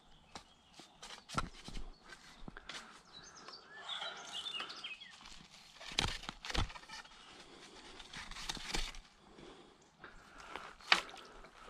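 Scattered knocks and crunching movement on a gravel riverbank, with a small bird twittering briefly about four seconds in.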